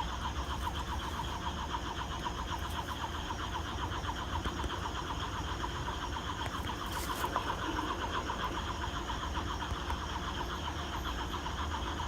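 Night chorus of frogs and insects: a dense run of rapid, overlapping chirping calls over a steady high hum, with a brief rustle about seven seconds in.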